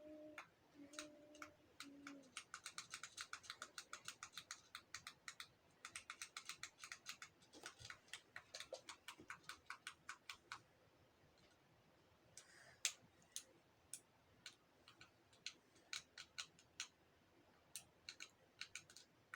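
Fidget toy being worked by hand, clicking faintly: a quick even run of about six clicks a second for several seconds, then slower single clicks.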